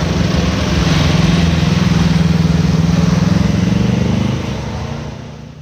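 Road traffic passing close by: a light truck's engine running right past, with a car and a motorcycle going by. The engine hum is loud and steady, then fades away near the end.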